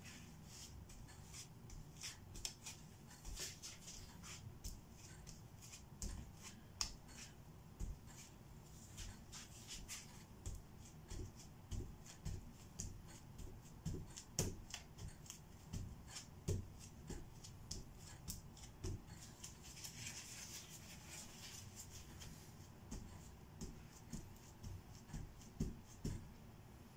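Faint, irregular clicks, taps and rustles of gloved hands working paper or tissue over a spray-painted canvas, with a brief soft hiss about twenty seconds in.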